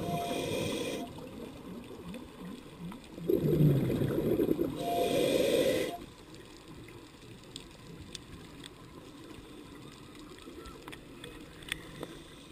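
Scuba regulator breathing underwater: an inhaled hiss with a short whistling tone from the demand valve, a burst of exhaled bubbles gurgling, then a second inhaled hiss ending about six seconds in. After that only faint underwater background with scattered faint clicks.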